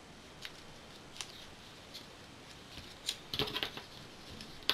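Faint handling of a small cardstock square: soft paper rustles and light taps as it is folded along the diagonal and the crease is pressed with a bone folder, with a short run of quick taps and scrapes about three seconds in.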